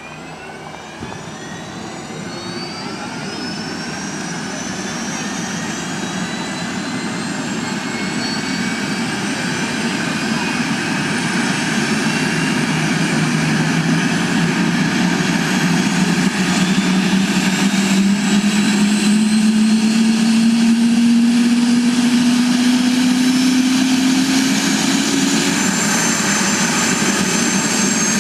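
Medical helicopter's turbine engine spooling up, a whine climbing in pitch over the first several seconds. The rotor then comes up to speed as a low hum that slowly rises in pitch, the whole sound growing louder through the first half and then holding steady.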